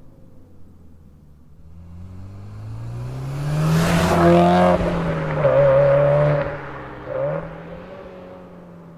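Subaru WRX STI's turbocharged flat-four exhausting through an HKS aftermarket muffler, revved up over about two seconds, held, dropped, revved again with a short blip, then settling back down toward idle.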